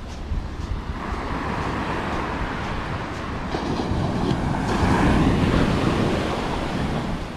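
Ocean surf: a wave breaking and washing up the beach, swelling to its loudest about five seconds in and then easing off, with wind rumbling on the microphone underneath.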